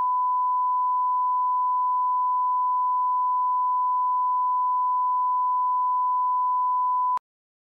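A steady, unbroken electronic bleep tone at about 1 kHz, a single pure pitch at constant loudness, which cuts off suddenly near the end.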